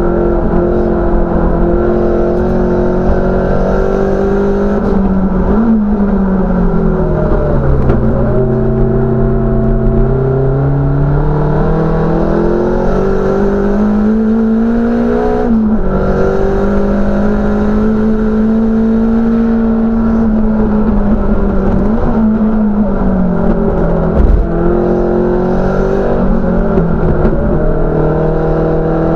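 Race car engine heard from inside the stripped, roll-caged cabin at racing speed, revs rising and falling through the corners. About halfway through the revs climb and then drop abruptly at an upshift, and there is a short thump about five seconds before the end.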